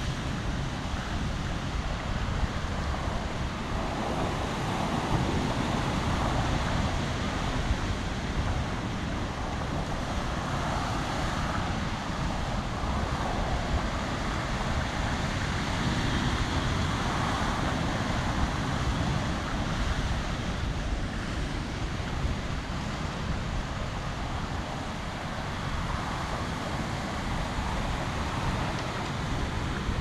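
Ocean swell surging and washing over rock ledges, with wind rumbling on the microphone; the wash rises and falls with each set.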